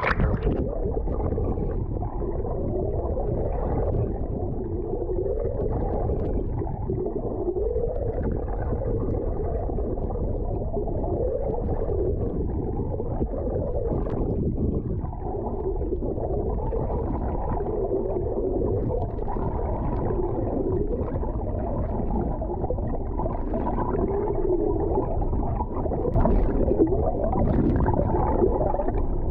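Muffled underwater sound picked up by a GoPro held below the surface: a steady low rumble of moving water with a wavering drone through it.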